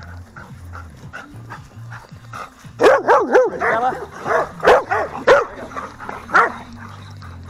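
A dog barking and yipping in play: a rapid run of about nine short, sharp barks starting about three seconds in, after softer low thumping.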